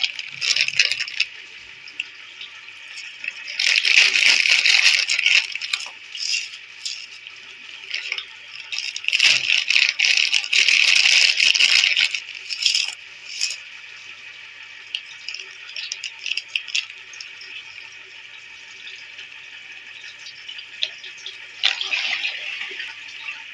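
Water swirling steadily in a whirlpool vortex, with a plastic snack packet crinkling and rattling loudly in bursts as puffed snacks are shaken into the water: once a few seconds in, again for several seconds around the middle, and briefly near the end.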